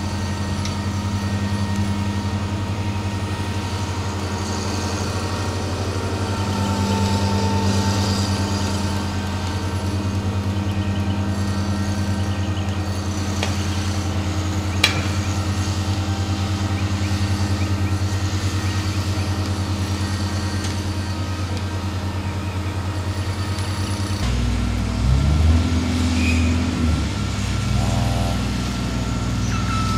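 Heavy mobile crane's engine running steadily, a low drone, as it hoists a stadium floodlight rack. There is a single sharp click about halfway through, and the engine note shifts in the last few seconds.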